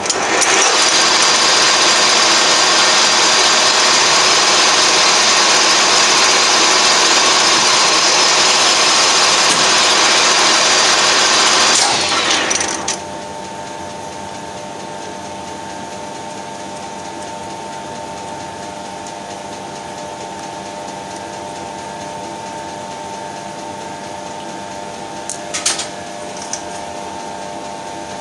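Colchester Triumph 2000 lathe running at speed with a high-pitched whine. About twelve seconds in the spindle winds down to a stop, leaving a quieter steady machine hum. Two light metallic clicks come near the end.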